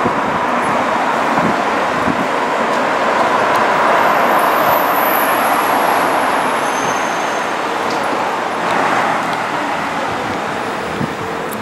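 Steady street traffic noise, loudest about four to six seconds in, as a New Flyer XDE60 diesel-hybrid articulated bus drives off among other passing vehicles.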